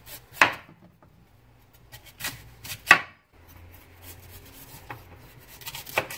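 Chef's knife slicing the skin off a celeriac, the blade knocking on a plastic cutting board with several sharp strikes, the loudest about three seconds in, and faint scraping between them.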